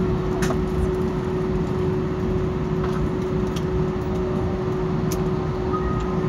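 Steady cabin noise of a jet airliner taxiing: a low rumble from the engines and rolling wheels, with a constant hum. A few faint ticks sound over it.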